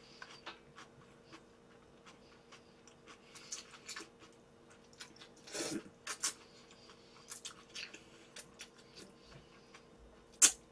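Cold buckwheat noodles in spicy sauce (bibim naengmyeon) slurped and chewed close to the microphone: scattered wet mouth clicks and smacks, a longer slurp about five and a half seconds in, and a sharp click near the end.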